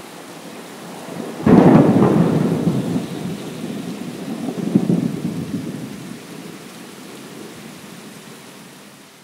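Thunderstorm: steady rain with a sudden loud clap of thunder about a second and a half in. The thunder rumbles on, swells again around five seconds, and the whole storm slowly fades out.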